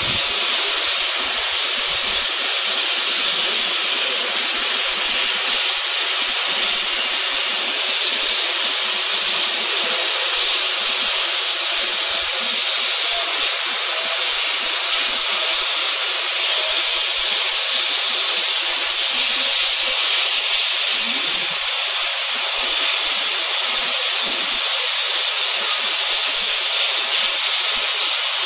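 Steady hiss of steam from the Dorking Greystone Lime Co. No. 3 "Captain Baxter", a small 0-4-0T steam tank locomotive, as it moves slowly and stands at the water column. The hiss holds even throughout, with no exhaust beats.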